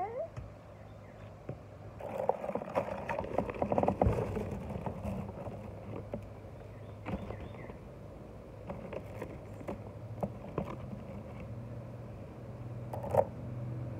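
Light clicks and rustling from beaded bracelets being handled close to the microphone, busiest about two to four seconds in, over a steady low background hum.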